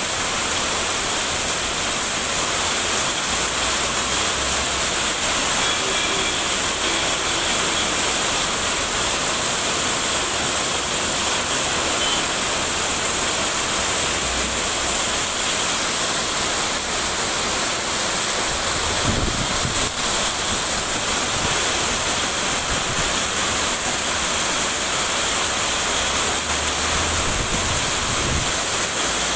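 Heavy rain pouring down onto a street: a loud, steady hiss of the downpour.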